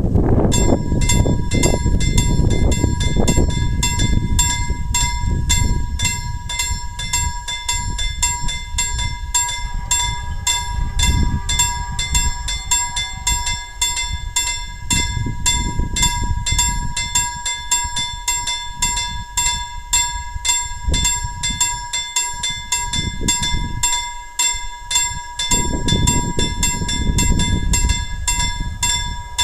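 Level-crossing warning bell ringing: rapid, evenly repeated strokes that start as the crossing signals switch on and keep going while the barriers come down. Under it, a gusty low rumble of wind on the microphone.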